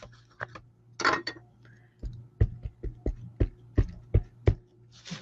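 A stamp tapped repeatedly onto an ink pad to ink it: about nine quick, sharp taps over two and a half seconds, with light rustling of handled craft pieces before and after.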